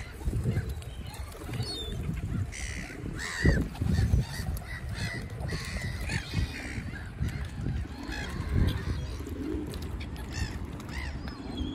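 A feeding flock of gulls and swans calling in many short, repeated cries over a steady low rumble. One louder thump comes about three and a half seconds in.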